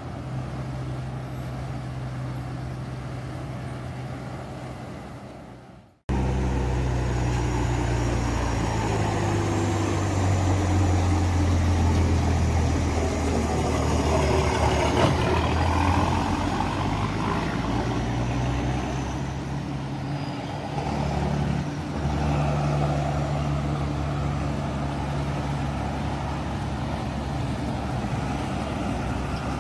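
Heavy dump truck's diesel engine running loud as it rounds a hairpin bend: a deep drone whose pitch rises and falls, with a faint high whine over it for a while. It starts abruptly after about six seconds of steadier, quieter traffic engine noise.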